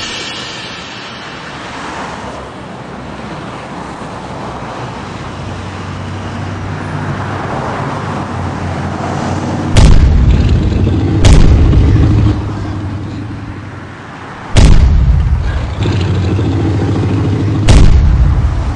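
A steady rumbling noise that slowly grows louder, then four heavy explosion-like booms in the second half, each followed by a deep sustained rumble.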